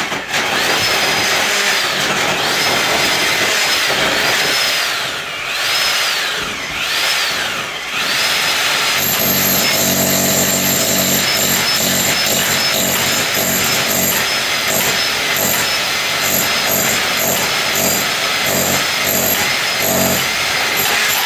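Bosch rotary hammer boring through a concrete block wall with a 2.5-inch core bit, running loud and continuously. Its motor whine dips in pitch a few times in the first eight seconds, then from about nine seconds it settles into a heavier, pulsing sound as the bit cuts.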